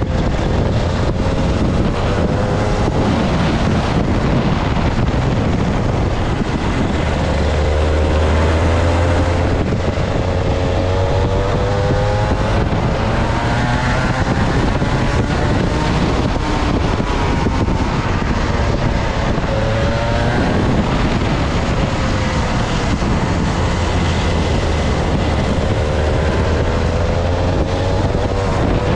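Two-stroke kart engine heard onboard at racing speed, its revs climbing and dropping again and again as the kart accelerates and slows through the corners.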